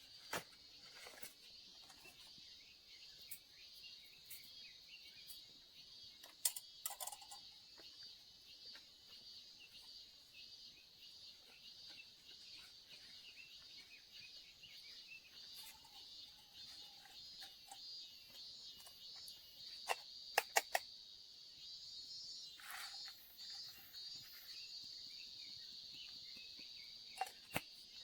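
Faint, steady high-pitched chorus of insects chirping, with a few scattered sharp clicks and knocks.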